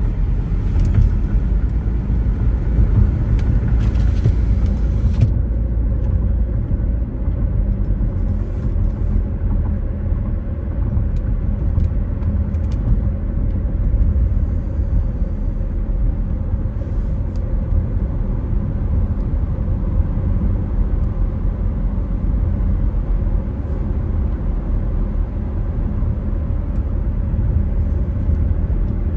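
A car being driven: steady low road and engine rumble, with a brighter hiss on top for the first five seconds.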